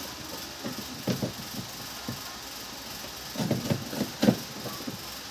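Short knocks and rattles of hard parts being handled while a twin-tub washing machine is taken apart, in two brief clusters about a second in and again past the three-second mark.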